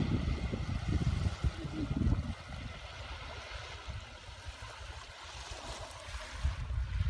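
Sea water washing at the shore, with wind buffeting the microphone in gusts for the first two seconds and again near the end.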